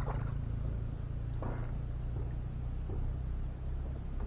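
Small water splashes where the fishing line enters the lake surface, one right at the start and another about a second and a half in, over a steady low rumble.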